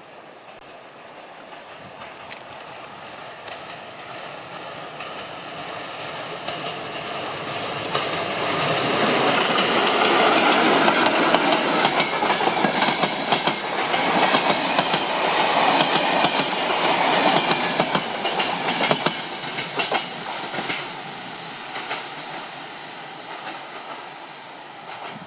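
Passenger train hauled by a BDŽ class 44 electric locomotive passing close by: it grows louder over several seconds, then the wheels clatter over the rail joints with rapid clicks at its loudest, and it fades as the train runs away into the distance.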